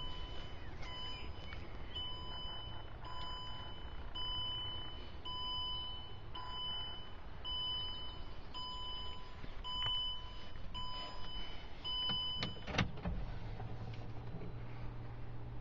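Range Rover dashboard warning chime pinging steadily, about one and a half chimes a second, stopping near the end. Then the 3.0 TD6 straight-six turbodiesel cranks, catches and settles into a steady idle.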